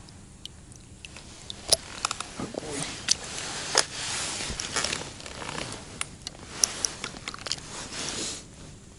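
Handling noise as a caught crucian carp is held and turned in wet hands: rustling and crackling with scattered sharp clicks.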